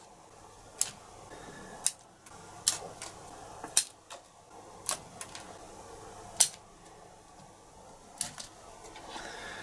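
Bonsai scissors snipping twigs and leaves off a ficus bonsai: about nine short, sharp snips at irregular intervals, two of them in quick pairs.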